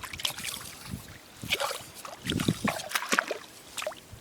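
Hands digging and scraping in wet sand, with irregular wet squelches and trickling water as clams are dug out barehanded.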